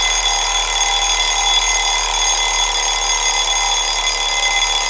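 Alarm clock bell ringing continuously at a steady, loud level, a bright ring of many high tones with no break.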